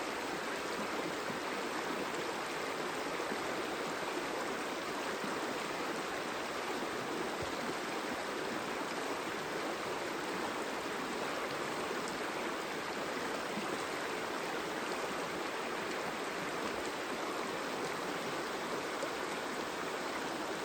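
Creek water running, a steady even rush with no breaks.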